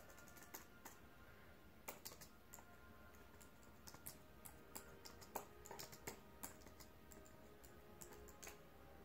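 Faint typing on a computer keyboard: irregular runs of light key clicks, a little denser in the middle.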